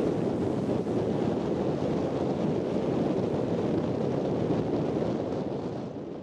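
Surf breaking on a beach with wind buffeting the microphone, a steady rush of noise that fades out near the end.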